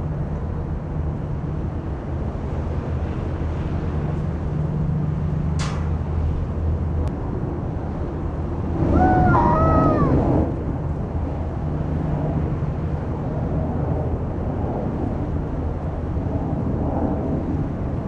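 Steady low engine drone with wind buffeting the microphone; about nine seconds in, a short, louder pitched cry that bends up and down in pitch.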